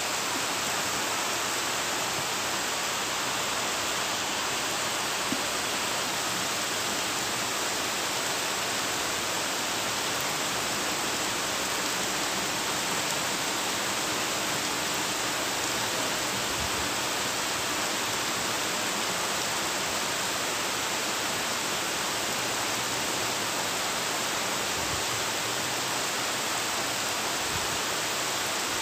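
Heavy rain pouring down steadily: an even, unbroken rush of falling water.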